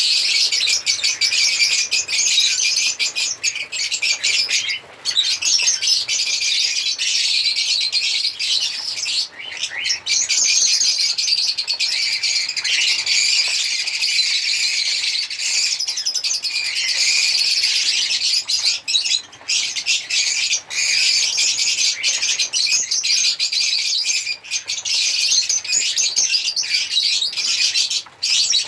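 Lovebirds chirping and chattering without let-up: a dense, rapid, high-pitched twittering with only a few brief breaks.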